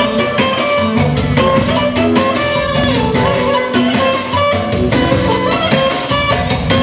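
Music with quick plucked guitar notes over a steady beat.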